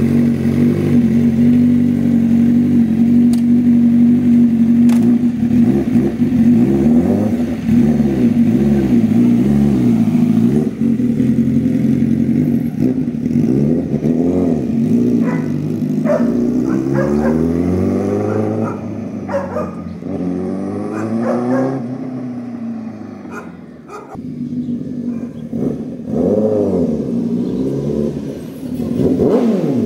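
Honda CBR1000RR-R Fireblade's inline-four, with an SC Project exhaust, idling steadily and then revving hard as the bike pulls away, rising and falling through the gears. It fades as the bike rides off and grows louder again as it comes back near the end.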